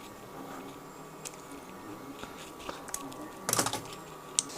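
Small clicks and taps with a brief scrape about three and a half seconds in, from a short piece of copper tube being cut and handled.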